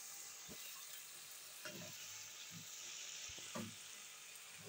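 Raw potato slices quietly sizzling in oil in a pan, stirred with a wooden spoon that knocks against the pan a few times.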